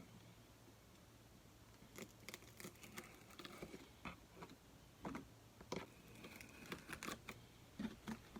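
Hobby knife cutting through a table tennis rubber sheet: faint, irregular scratching strokes, starting about two seconds in.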